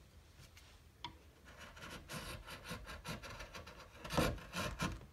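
Half-inch Narex bevel-edge chisel paring across hardwood end grain: a series of short scraping, shaving strokes, the loudest about four seconds in.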